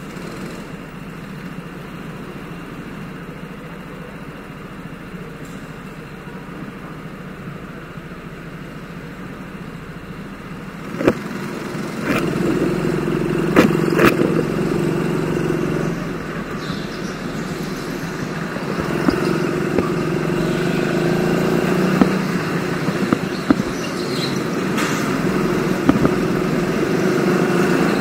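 Go-karts running, with a steady hum that gets louder about eleven seconds in, and a few sharp clicks soon after.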